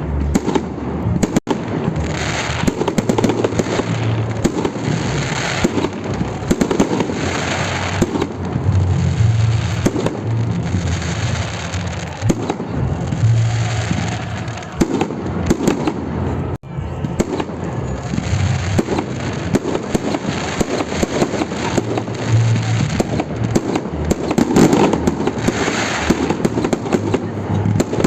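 Fireworks salute: a continuous barrage of bangs and crackling from aerial shells bursting.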